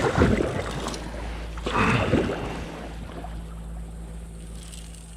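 A small boat moving on a river: a steady low hum runs throughout, and water rushes and splashes twice in the first couple of seconds.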